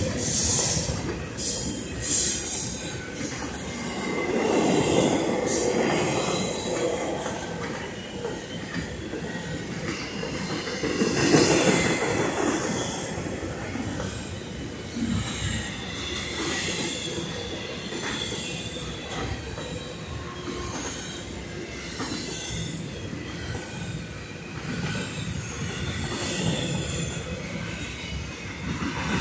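Double-stack intermodal freight cars rolling past: a continuous rumble of steel wheels on rail, swelling a little twice, with a faint high squeal of wheels against the rails.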